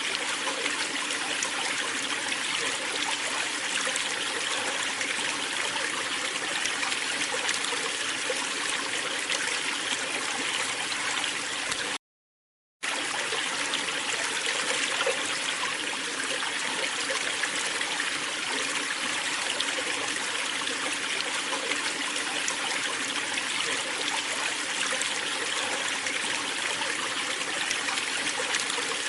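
Waterfall: a steady rush of falling water. It cuts out completely for under a second about twelve seconds in, then resumes unchanged.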